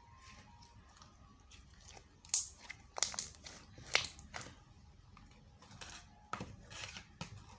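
Homemade glue slime being kneaded and stretched by hand with clay worked into it, giving irregular sticky clicks and pops every second or so.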